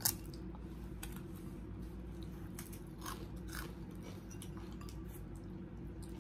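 Close-miked eating by hand: fingers picking at fish and rice, with crunching and chewing heard as scattered crackles and clicks. The sharpest click comes right at the start. A steady low hum runs underneath.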